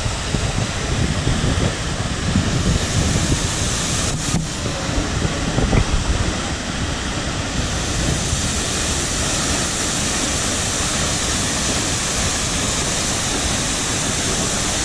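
Sikulikap waterfall's heavy falling water rushing steadily, with wind buffeting the microphone in the first half.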